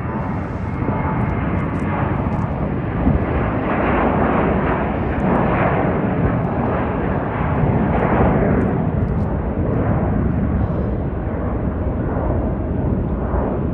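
Airbus A321's twin jet engines at takeoff thrust as the airliner lifts off and climbs away: a steady rushing noise, loudest from about four to nine seconds in.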